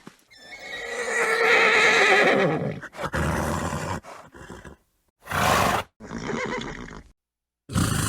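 A horse neighing: one long, wavering whinny of about three seconds, followed by shorter calls and two brief snorts in the second half.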